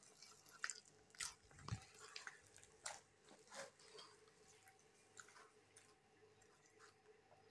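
Near silence, with faint scattered soft clicks and squelches over the first few seconds, then quieter.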